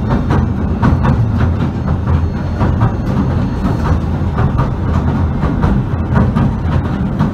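Pier railway train running along its track, heard from inside the carriage: a steady low rumble with frequent irregular clicking and knocking from the wheels and rattling carriage.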